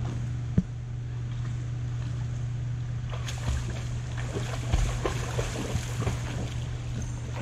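A dog swimming in a pool: water splashing and lapping in small irregular bursts from about three seconds in, over a steady low hum. A single sharp knock about half a second in.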